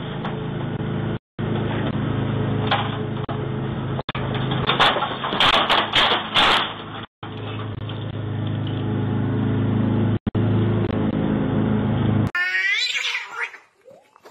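Metal folding ladder toppling and clattering to the ground, a cluster of loud crashes about five seconds in, over the steady electrical hum of a doorbell camera's microphone. Near the end a cat meows.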